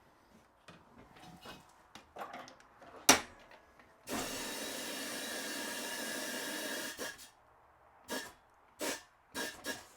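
Tire changing machine at work during a tire mount: light rubbing and clicks, a sharp clank about three seconds in, then about three seconds of steady hissing machine noise, and several short hisses near the end.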